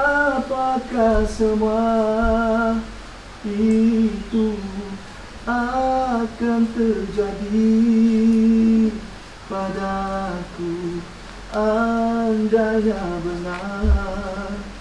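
A man singing a slow melody alone, without accompaniment, in phrases of long held notes with short breaks between them.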